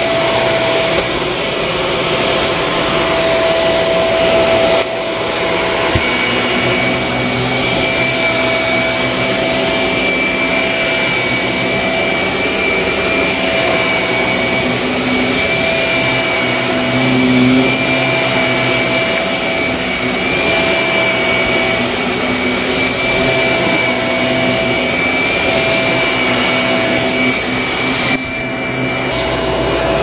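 Shark Navigator upright vacuum cleaner running on carpet: a steady motor hum with a constant high whine.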